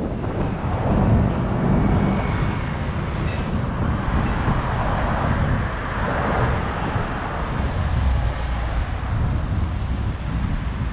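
City street traffic: cars running steadily along a multi-lane road, tyre and engine noise, with wind rumbling on the microphone.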